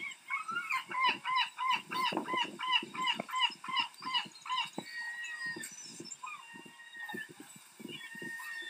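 Gulls calling: a loud run of repeated calls, about three a second, through the first half, then fainter scattered calls.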